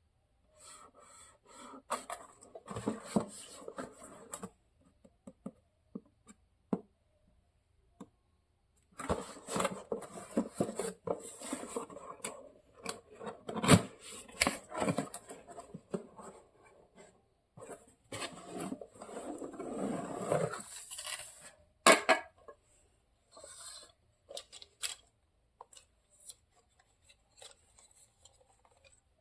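A toy and its packaging being unboxed and handled: rustling and scraping in three spells with sharp clicks and taps, the loudest click about 22 seconds in.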